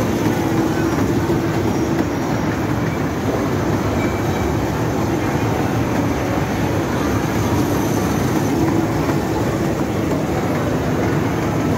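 Electric kiddie-ride toy train running around its small circular track, a steady running noise with a low hum throughout.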